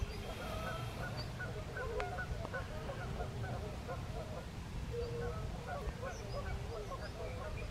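A flock of Canada geese honking and calling together, many short overlapping calls without a break, over a steady low rumble.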